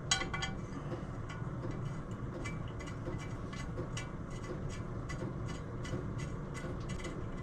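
A metallic clink at the start, then a run of small irregular ticks as a steel stud is screwed by hand into a threaded hole in the engine crankcase, over a steady low hum.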